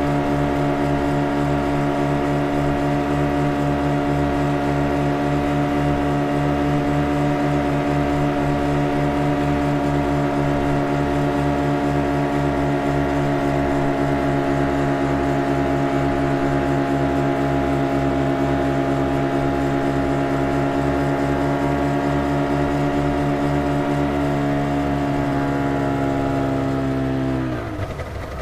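Motorboat engine running at steady high revs. Near the end the pitch slides down and the level falls as the throttle comes back.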